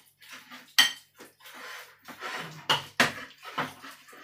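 A spoon stirring a sticky minced pork mixture in a ceramic bowl, scraping, with several sharp clinks as it knocks against the bowl.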